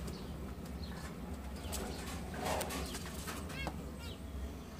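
Caged zebra finches and diamond doves calling: a few short chirps, two of them close together about three and a half seconds in, and a soft dove coo.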